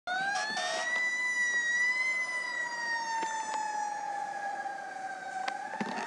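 Fire truck siren wailing: one long tone that rises at the start, holds, then slowly falls and begins to rise again near the end.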